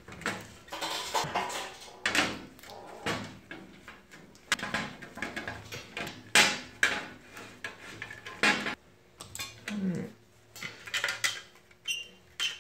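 Irregular clicks, knocks and clatter of a small electronics enclosure being taken apart by hand: a socket pulled from a socket tray, screws undone with a quarter-inch socket, and the housing and circuit board knocked against the workbench. The loudest knock comes about six seconds in.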